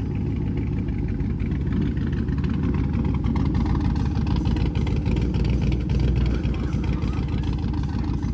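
Gen 3 5.3-litre V8 with a Truck Norris camshaft, in a 1999 Chevy Silverado, idling steadily, heard close to the exhaust tailpipe.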